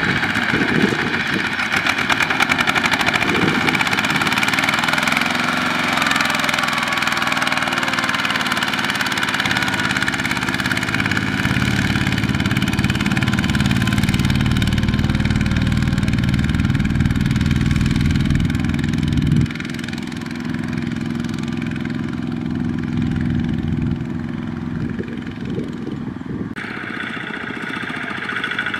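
Kubota ZT120 single-cylinder diesel engines of two-wheel walking tractors running steadily while hauling loaded trailers. The sound changes suddenly twice, about two-thirds of the way in and near the end, where it gets a little quieter.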